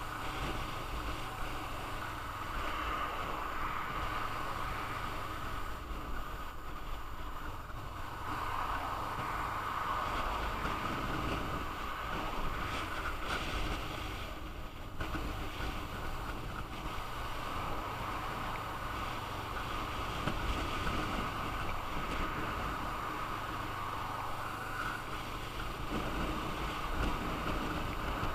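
Motorcycle riding at road speed: a steady rush of wind over the camera's microphone, with the engine and road noise underneath.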